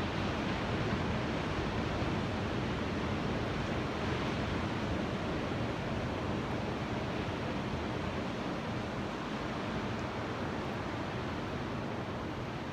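Ocean waves: a steady, even wash of surf with no single breaking wave standing out.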